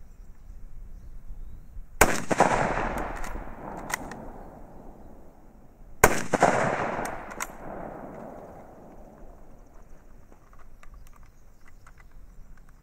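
Two shots from a Mauser K98k bolt-action rifle, chambered in 7.92×57mm Mauser, about four seconds apart, each with a long echoing tail. A few lighter clicks follow each shot.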